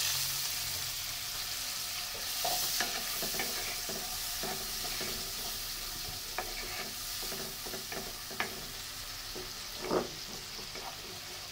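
Sliced onions and spice paste sizzling in hot oil in a nonstick wok, a little water just added, while a wooden spoon stirs and scrapes the pan in short strokes, with a louder scrape about ten seconds in. The masala is being fried down for chickpea bhuna.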